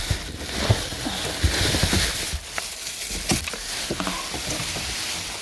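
Packaging rustling and crinkling as the box contents are handled, with several sharp clicks and knocks in between.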